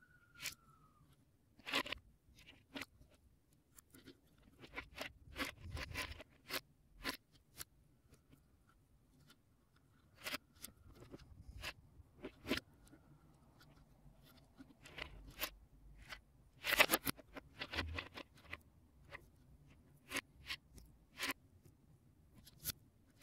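Lego Technic plastic parts (beams, pins and gears) clicking and knocking as hands handle them and press them together or pull them apart. The sharp clicks come irregularly, with the loudest cluster about two-thirds of the way through.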